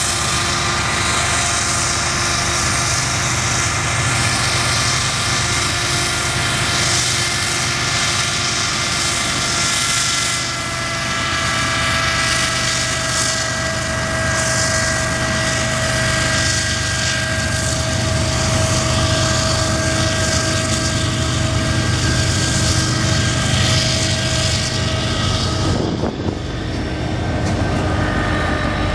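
Diesel-electric freight locomotives running: a steady engine drone with several high whining tones held over it. About 26 seconds in the sound changes to a different diesel locomotive.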